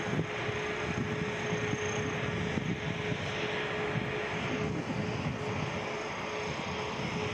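Airbus A320neo's CFM LEAP-1A turbofan engines running at low taxi thrust: a steady rushing drone with a held whine.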